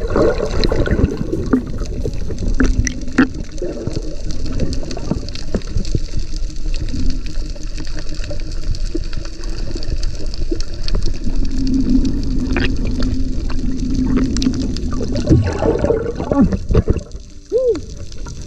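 Muffled rushing and bubbling water heard by a GoPro inside its waterproof case while submerged during a dive, with a low rumble and scattered clicks. A faint steady hum comes in for a few seconds past the middle.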